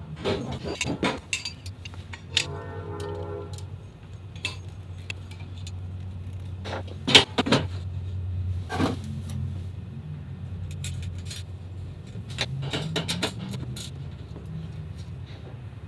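Metal clinks and rattles of aluminum 80/20 extrusion, corner brackets and hand tools being handled as the frame is tightened and squared up. A short squeaky tone comes a couple of seconds in, all over a steady low hum.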